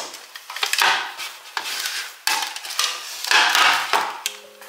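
A cloth and a metal baking tray being handled on a kitchen countertop: a series of rustles and scrapes, each with a sharp start, as the tray slides and is set down.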